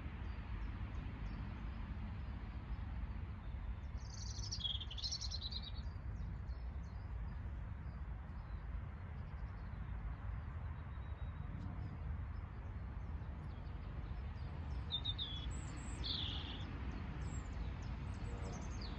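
A small songbird singing in two short bursts of high chirps, about four seconds in and again near the end, over a steady low rumble.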